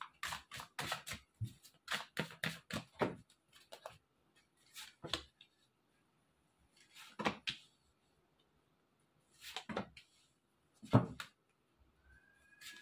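A deck of tarot cards being shuffled by hand, a quick run of crisp card clicks and rustles for about three seconds. Then four separate short card sounds, a couple of seconds apart, as cards are dealt onto the cloth.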